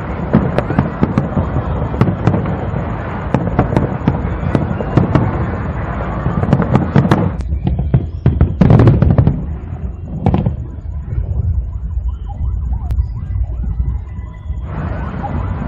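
Aerial fireworks display: a dense run of rapid bangs and crackling shells that thins out after about seven seconds, leaving a few loud booms.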